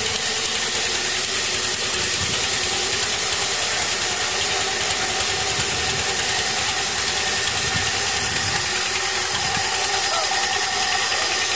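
Sawmill band saw running steadily without cutting: a constant mechanical whir with a high hiss.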